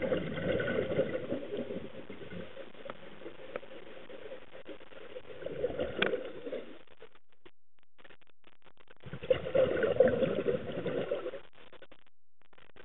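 A scuba diver's exhaled breath bubbling out of the regulator underwater, in three gurgling bursts a few seconds apart, with a quiet steady background between them.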